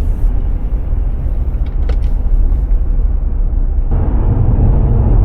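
Loud, low, gusting rumble of wind and surf on an action camera's microphone on the beach, growing fuller about four seconds in.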